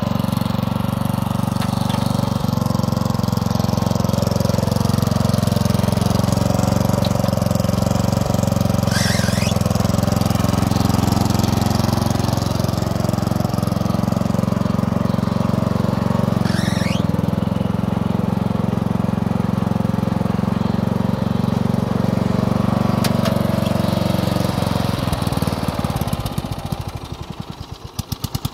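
Murray 12 hp riding lawn mower with a 38-inch cutting deck, its engine running steadily while mowing grass. About 25 seconds in, the engine slows to a low idle and its separate firing beats can be heard. Two short, high squeals come about 9 and 17 seconds in.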